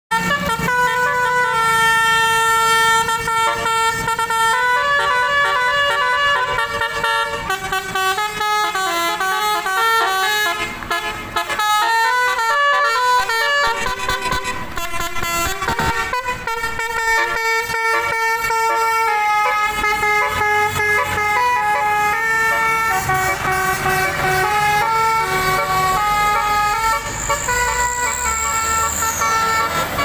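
Tour buses' telolet horns: multi-tone bus horns playing quick tunes, several notes sounding at once and stepping up and down, one melody after another. A bus engine runs low beneath in the second half, and near the end a high thin tone bends down as it stops.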